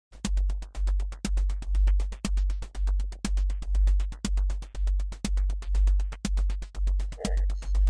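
Electronic music: a deep bass pulse about twice a second under fast, even ticking hi-hat-like clicks with a stronger accent about once a second. Short synthesizer tones come in near the end.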